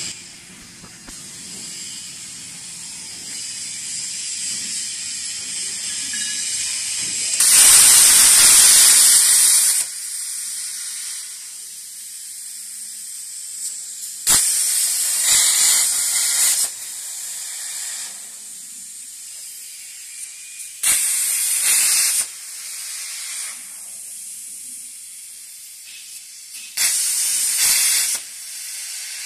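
CNC plasma cutter torch cutting steel plate, a loud hiss of the arc in four separate cuts of about one to two and a half seconds each, the first the longest. A softer steady hiss carries on between the cuts.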